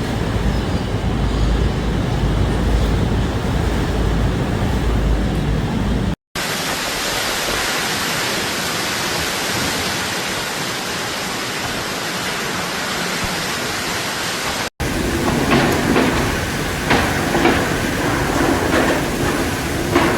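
Strong cyclone wind and rain on a microphone, across three joined clips. First a heavy low buffeting of wind on the mic, then after a cut a steady hiss of wind-driven rain. After a second cut about two-thirds of the way in, gusty noise with brief sharper knocks.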